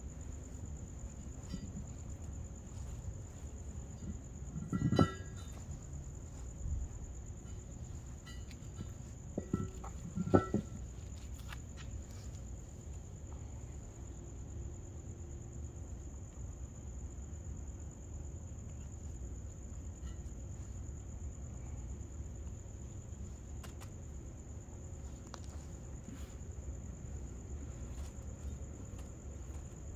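Crickets chirring as one steady high tone throughout. Twice, about 5 and 10 seconds in, a short knock with a brief ring comes from the scuba tank being handled in its trash bag.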